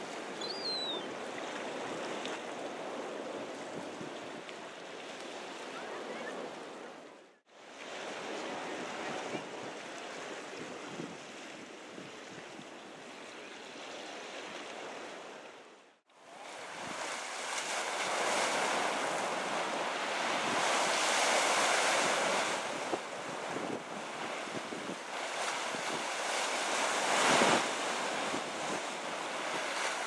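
Sea surf washing and breaking against rocks, with wind on the microphone; the surf is louder in the second half. A single short, high, falling bird call comes just under a second in.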